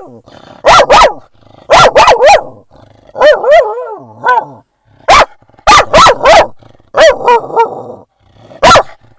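A dog barking loudly in short bursts of one to three barks, about a dozen barks in all, at another dog it has spotted.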